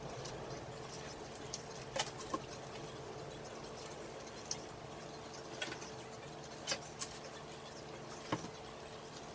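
A person chewing chicken McNuggets: soft mouth and chewing noises with about seven sharp clicks and smacks scattered through it, over a steady low hum.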